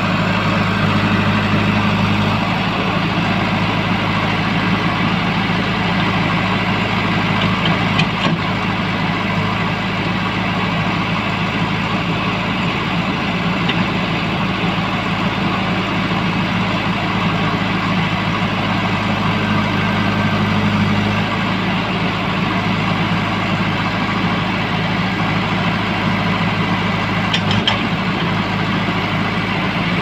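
A JCB 3DX backhoe loader's diesel engine running steadily as the backhoe arm digs. Its low hum shifts in level about two seconds in and again about twenty-one seconds in, with a couple of faint clicks.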